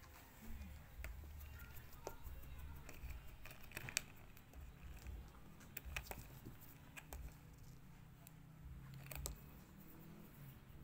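Faint, scattered clicks and ticks of a plastic pin brush as fingers pull dog hair from its bristles and handle it against the floor, the sharpest click about four seconds in, over a low rumble.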